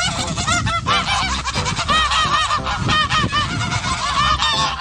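Geese honking: many short, overlapping honks in quick succession, as from a flock.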